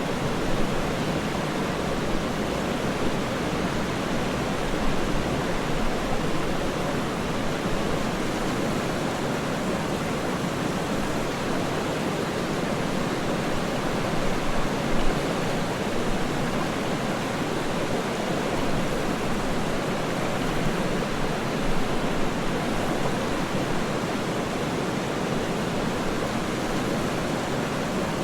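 Waterfall: a steady, unbroken rush of falling water, fullest in the low and middle range, with a few slightly louder splashes.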